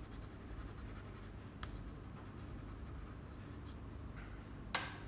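Soft pastel stick scratching on paper in quick short strokes during the first second or so, then quieter, with a sharp tap near the end.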